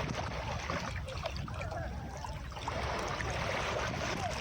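Sea waves washing steadily onto a beach, with a low rumble underneath.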